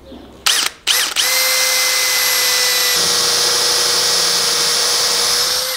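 Cordless drill boring through a strip of recycled-plastic flooring. It gives two short bursts as the bit starts, then spins up and runs steadily with a whine for about four and a half seconds before stopping.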